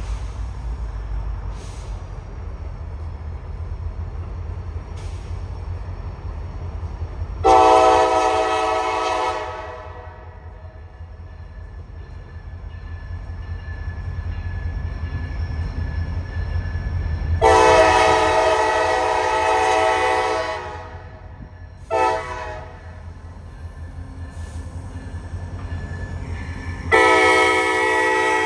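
Diesel locomotive air horn sounding the grade-crossing signal: two long blasts, a short one, then a long one, each a chord of several notes. Under it runs the low, steady rumble of the locomotive's engine, building toward the middle.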